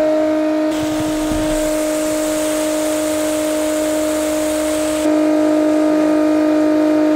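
Portable water pump running with a steady motor whine as it pumps collected rainwater out to a garden hose. From under a second in until about five seconds in, the hiss of the hose nozzle's spray jet is heard over it.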